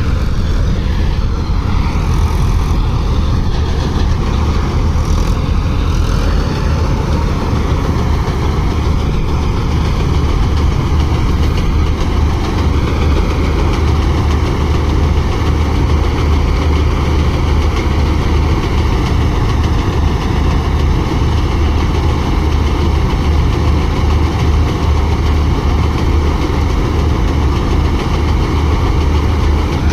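Matharu-4000 combine harvester's diesel engine and machinery running steadily while its unloading auger pours paddy grain into a tractor trolley, with a tractor engine idling alongside. A loud, even machine drone with a strong low hum that does not change.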